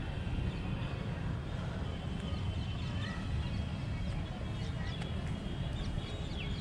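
Outdoor ambience: a steady low rumble with birds chirping in short, high calls throughout.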